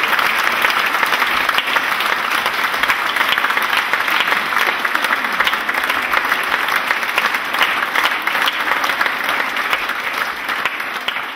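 Audience applauding: dense, steady hand-clapping that begins to fade near the end.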